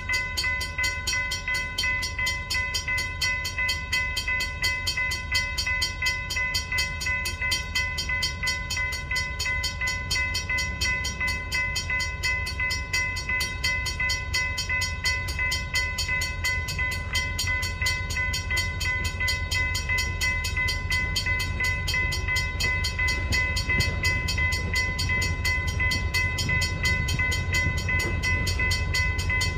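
Railroad grade-crossing warning bell ringing steadily. The low rumble of an approaching diesel locomotive grows louder in the last several seconds.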